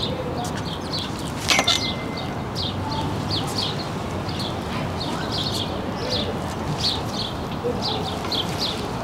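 Small birds chirping over and over, above a steady low background rumble. About one and a half seconds in, a sharp clank as hands catch the steel pull-up bar, and the bar rings briefly.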